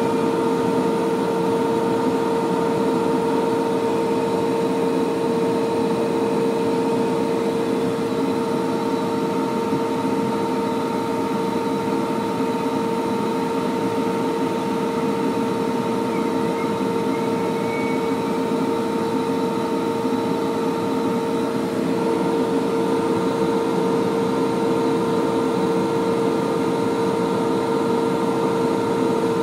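Steady drone of a heavy earthmoving machine's diesel engine heard from inside its cab, holding one constant pitch with a slight shift about two-thirds of the way through.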